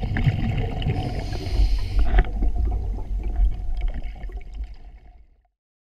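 Underwater noise of a scuba dive picked up through a diving camera's housing: a low rumble with gurgling from the diver's exhaled regulator bubbles and silt being stirred up. It swells into a louder rush from about one to two seconds in, then fades out about five seconds in.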